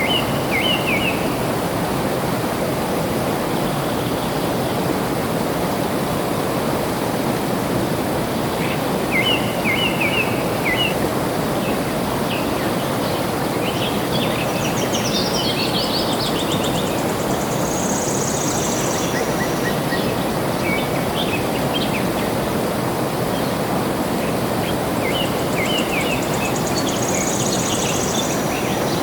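Flowing water with a steady rushing sound, and small birds chirping over it in short bursts of quick notes, with a couple of higher buzzy calls.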